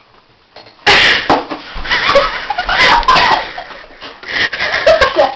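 Quiet at first, then about a second in a sudden loud burst of wordless vocal reactions from people, which carries on in uneven bursts.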